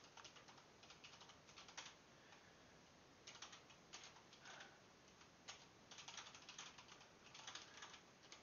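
Faint typing on a computer keyboard: keys clicking in short runs with brief pauses between them.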